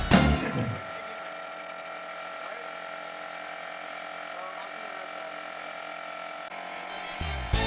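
Background music that cuts out about a second in, leaving a quiet, steady held tone, then comes back in near the end.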